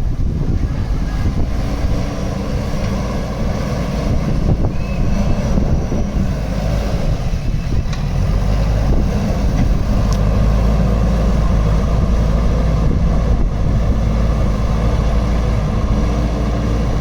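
JCB 3DX Super backhoe loader's diesel engine running steadily under work, a loud low drone that rises slightly in level partway through.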